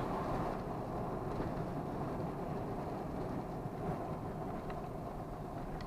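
Steady low engine and road noise inside the cabin of a 2002 Toyota 4Runner on the move, with no whine: the freshly installed remanufactured automatic transmission is running quiet.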